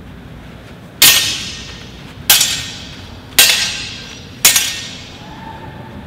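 Steel longsword blades clashing four times, about a second apart, each a sharp clang that rings and fades. The strikes are met blade on blade by a sword held in the Ox guard.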